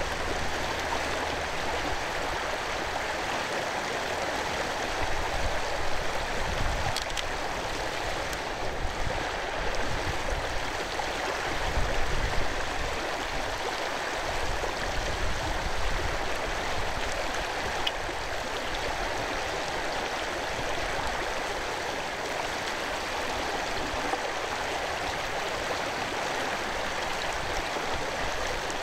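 Steady rush of a flowing stream, with a few brief low rumbles around the middle.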